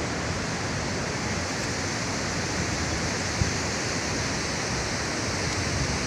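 Chitrakote Falls, a broad waterfall running full with muddy brown water, rushing with a steady, unbroken noise. A single brief thump about three and a half seconds in.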